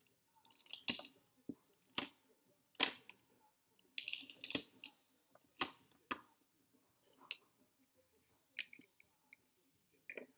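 Nikon F 35 mm film SLR being loaded with film: a series of sharp, irregular mechanical clicks from working the camera's mechanism, with a short run of rapid ratcheting clicks about four seconds in and a last click as the camera back goes on near the end.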